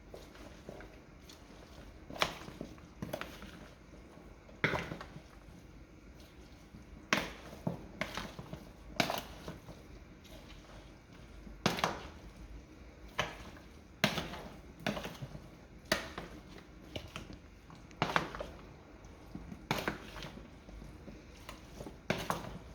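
Crushed olives being stirred with garlic, chopped lemon and spices in a bowl: irregular wet knocks and squelches, roughly one every second or two.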